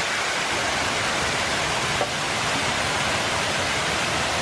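Strong wind blowing across the microphone: a steady loud rushing noise with an unsteady low rumble.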